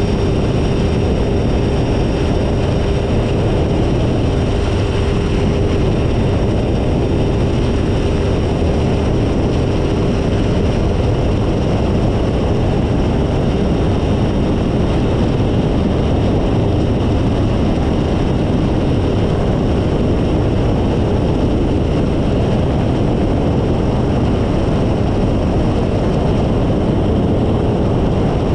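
Phantom ultralight's engine and propeller running steadily at cruise in flight, with heavy wind rush. A steady whine runs through the first half and fades out about midway.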